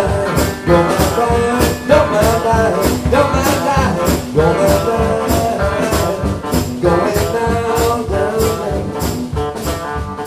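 Live band playing a song: keyboard, electric bass and drum kit keeping a steady beat, with a man singing over it.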